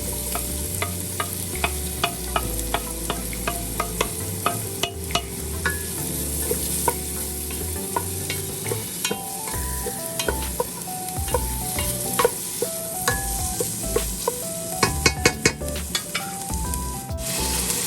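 Chopped garlic and onion frying in olive oil and butter in a pan, sizzling steadily. A utensil stirs the pan, clicking and scraping against it, with a quick run of clicks near the end.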